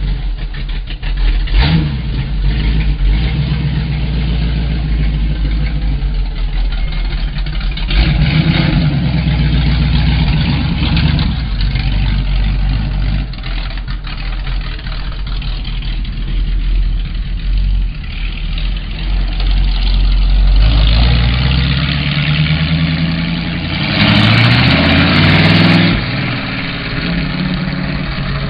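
1932 Ford roadster pickup's engine running just after starting, idling with short throttle blips. From about 21 s the revs climb for several seconds, the loudest part, then drop back to idle.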